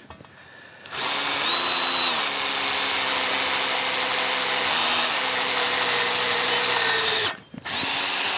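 Electric drill boring out a broken steel stud in a David Brown 990 tractor's final drive casting. It starts about a second in and runs steadily, its motor pitch dropping as the bit loads up and later rising again, then stops briefly near the end and starts again.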